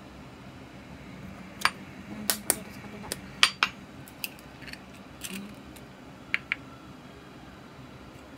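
Scattered sharp clicks and taps of kitchen handling, about ten in all and most of them in the first two thirds: eggs being cracked, eggshells and a spoon knocking on a wooden cutting board.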